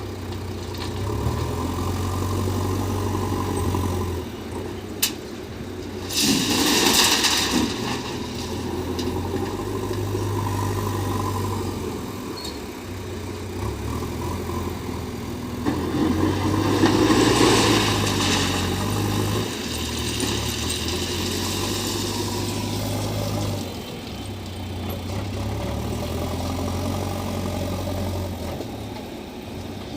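JCB 3DX backhoe loader's diesel engine running steadily while it loads ballast stone, rising and falling with the work. Twice the engine is drowned by a louder rush of noise lasting a couple of seconds, about six and about sixteen seconds in.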